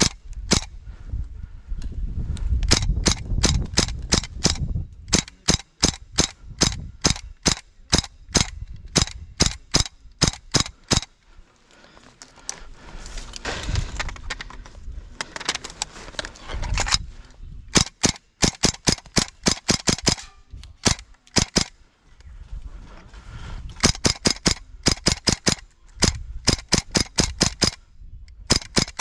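Airsoft guns firing: sharp pops in quick strings of several shots, about three to four a second, with short pauses between the strings, repeating throughout.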